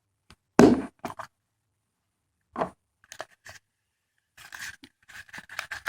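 A surprise egg being opened by hand: a few separate sharp cracks and clicks, the loudest about half a second in, then denser crinkling and crackling of wrapping near the end.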